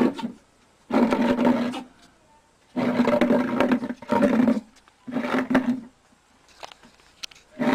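An upturned plant pot scraping across a concrete floor in a series of drags, each about a second long, each with a steady low pitch.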